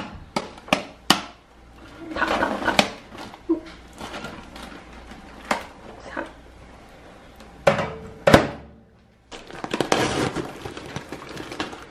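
Handling a paper bag of microwave popcorn: several sharp clicks and knocks, then from about nine seconds in a continuous crinkling and rustling of the paper bag as it is pulled open.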